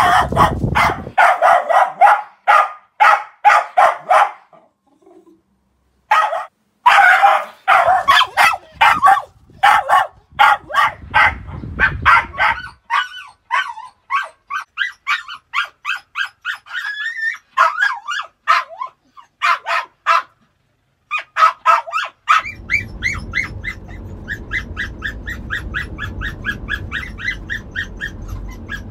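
Reactive Border Terrier barking nonstop from a crate in a van, a sign of high arousal: fast runs of sharp barks, about three a second, breaking off twice for a second or so. In the last third the barks turn higher and yappier over a low steady rumble.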